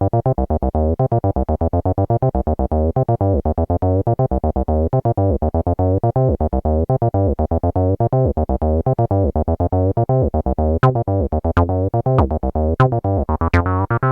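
Roland TB-03 bass synthesizer playing its sequenced pattern: a fast, looping run of short pitched bass notes. From about eleven seconds in, some notes come out with a sharp, bright attack, typical of accented steps in a 303-style pattern.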